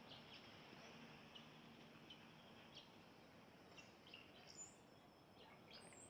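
Small birds chirping faintly: short, scattered chirps, a few of them higher-pitched near the end, over a steady background hiss.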